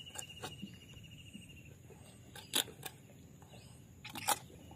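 Knife filleting a fish on a wooden cutting board: a few sharp clicks as the blade works down the spine, two louder ones about two and a half and four seconds in. A faint insect trill runs underneath during the first two seconds.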